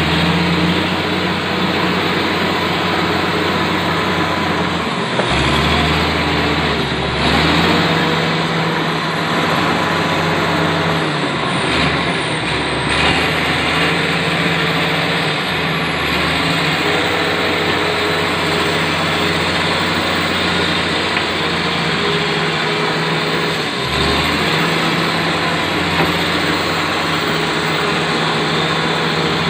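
Komatsu D85ESS bulldozer's diesel engine running loud and steady under working load, its note dipping briefly several times as the engine is loaded down.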